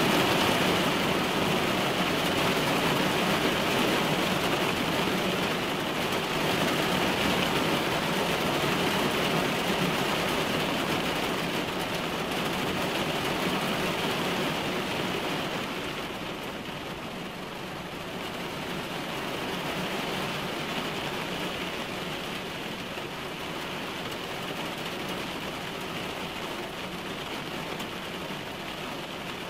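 Heavy rain falling on a car's windshield and body, heard from inside the car as a steady wash of noise. The downpour lets up a little about halfway through.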